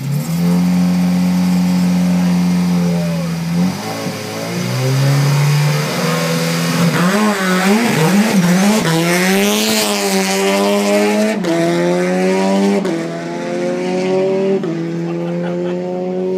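Turbocharged Nissan Silvia rally car's engine held at steady revs on the start line, then launching from a standing start with the revs bouncing, and accelerating hard with quick upshifts through its Hollinger six-speed sequential gearbox, about a second or two apart near the end.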